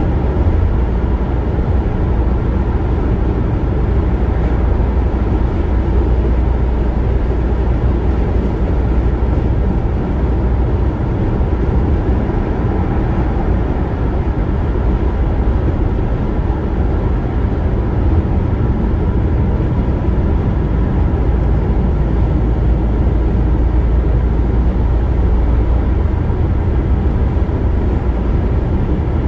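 Steady road and tyre noise with engine hum inside a car cruising at highway speed, a constant low rumble.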